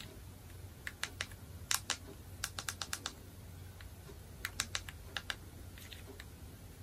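Light clicks of buttons being pressed, about a dozen and a half in quick irregular runs, as the TV's Bluetooth pairing is set up.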